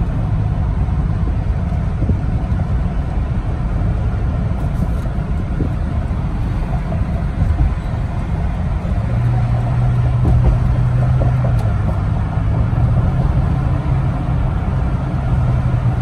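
Road noise inside a moving car's cabin: a steady low rumble of tyres and engine, with a steady low hum joining about halfway through.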